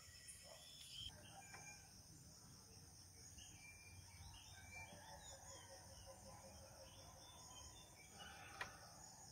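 Near silence: faint outdoor morning ambience, with scattered small bird chirps over a steady high insect drone. A single soft tap comes near the end.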